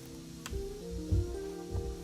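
Soft background music: a melody of held notes over a low, even beat. A single sharp click sounds about half a second in.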